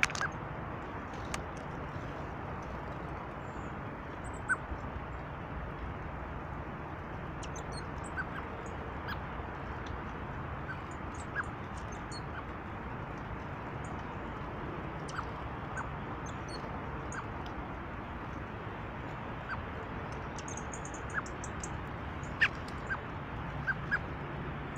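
Birds calling in short, scattered chirps and pips over a steady background noise. A cluster of high chirps comes near the end.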